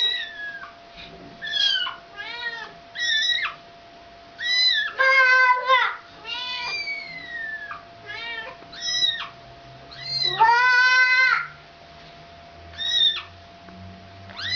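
A kitten mewing over and over in short, high-pitched calls, answered by a mother cat's longer, lower meows, one about five seconds in and a drawn-out one about ten and a half seconds in.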